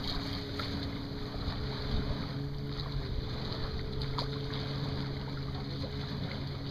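Outrigger canoe paddle working through the water in practice strokes, with a few faint knocks and water sounds, over wind on the microphone and a steady low hum.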